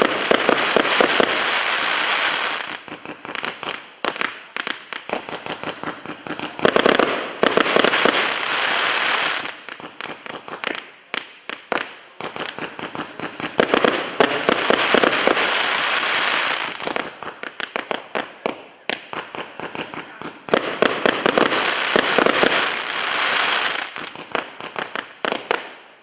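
Multi-shot consumer firework, 'Zvonkie Kolokola' (Ringing Bells), firing: a string of sharp pops from the shots going up and bursting, and four times a few seconds of dense crackling from the crackling stars.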